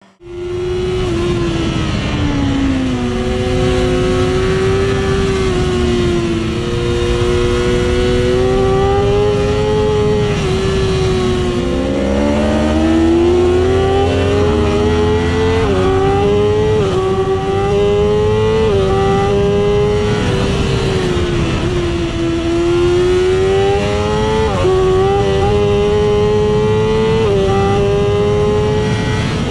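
BMW M 1000 RR's 999 cc inline-four heard on board at high speed. The engine note climbs and falls repeatedly as the bike accelerates and slows, with sudden pitch steps at the gear changes, over steady wind rush.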